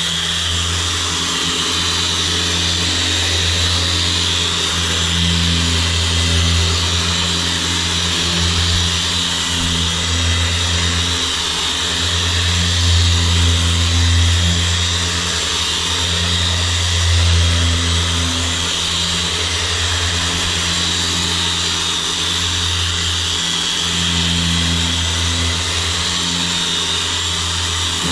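Harbor Freight dual-action polisher with a foam pad running steadily while polishing a jet ski's hull, its motor hum wavering slightly in strength.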